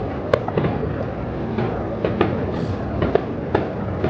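Fireworks shells bursting: an irregular run of sharp bangs, a few every second, over a steady background rumble.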